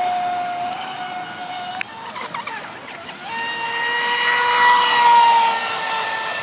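Electric RC racing boat's NEU 1527 brushless motor whining at speed. The whine cuts off with a sharp click a little under two seconds in, gives way to a rougher, noisy stretch, then comes back higher-pitched about three seconds in and is loudest around five seconds, easing slightly in pitch near the end.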